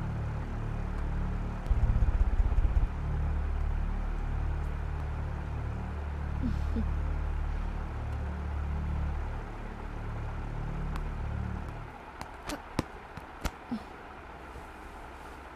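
A low, steady rumbling drone, with a louder pulsing stretch about two seconds in. It stops about twelve seconds in and is followed by a few sharp clicks.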